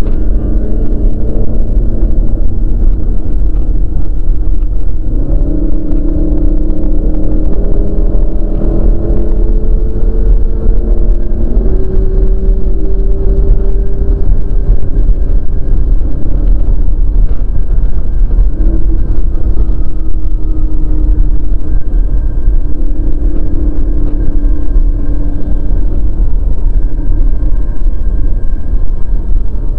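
Jaguar's engine and road rumble heard inside the cabin at motorway speed. The engine note jumps up in pitch about five seconds in and climbs slowly as the car accelerates, then drops back about twelve seconds in and settles.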